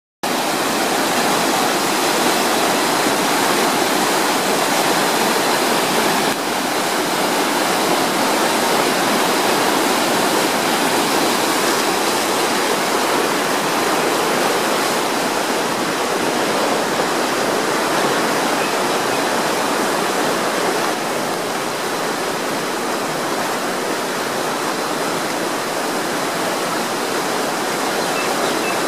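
Storm floodwater rushing down a concrete-lined stormwater drain running full, a steady turbulent rush of whitewater that eases slightly in the last third.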